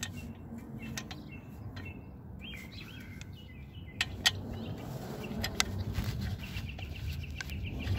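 A few sharp metallic clicks as a folding hex-key tool is fitted into a motorcycle swingarm spool and turned to tighten it, the loudest about four seconds in and again a little later. Short high chirps sound faintly throughout.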